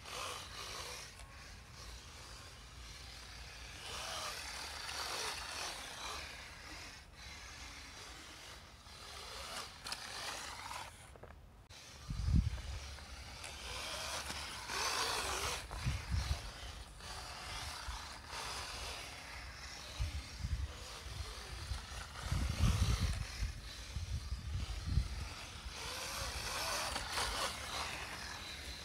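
Small RC snowmobile's brushless electric motor (3380kv, 2S LiPo) whirring as its track churns through snow, swelling and fading several times as it speeds up and slows. Short low rumbling bumps break in a few times in the second half.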